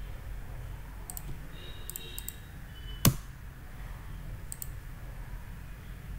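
Light computer mouse clicks scattered through the stretch, with one sharper, louder click about three seconds in, over a steady low hum.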